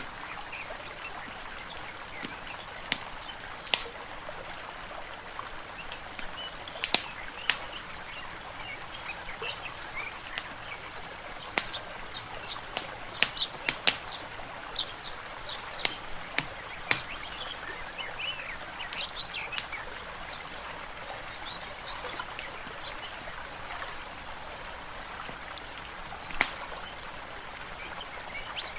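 Layered nature ambience: a steady watery hiss like a stream or lapping lake, scattered sharp crackling pops of a fireplace, and short bird chirps throughout.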